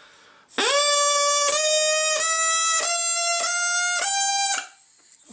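Plastic drinking-straw reed (a straw 'kazoo' with its end cut into two flaps) blown in one long note. The pitch steps up about five times as the straw is snipped shorter with scissors while it is played, because a shorter tube gives a higher pitch.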